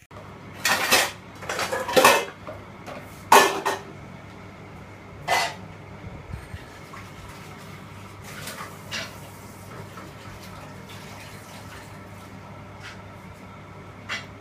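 Dishes clinking and knocking: several sharp clatters in the first five or six seconds, then a few fainter knocks, over a steady low hum.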